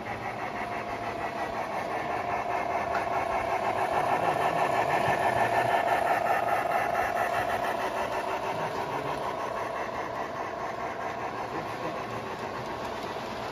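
G-scale model train running past on the track: a steady mechanical hum with a fast rattle of wheels and gears, growing louder to a peak about midway and then fading.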